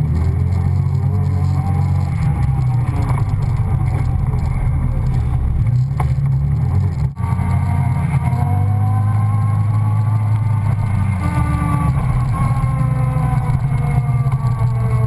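Off-road vehicle engine running while driving on a dirt and gravel road: a steady low drone, with a whine that rises and falls as speed changes. The sound drops out briefly about seven seconds in.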